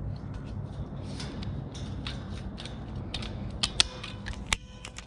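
Nylon zip tie being pulled tight around a fence-sensor cable, its teeth ratcheting through the lock in a string of quick rasping clicks. There are sharper clicks about three and a half seconds in and a last one near the end.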